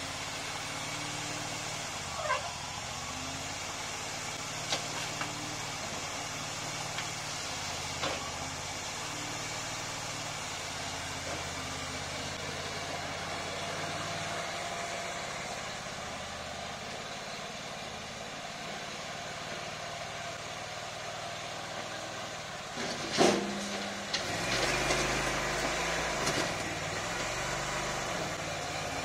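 Engine of a homemade mini wheel loader running steadily, its pitch shifting as the machine drives and manoeuvres, with a few sharp clicks. Near the end there is one loud knock, then the engine runs louder under load as the bucket is driven into dense soil.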